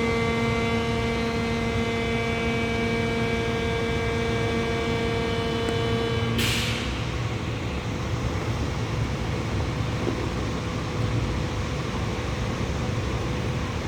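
Farana F17 crane's engine running with a steady droning tone over it for about six seconds. The tone stops with a short hiss, and the engine runs on.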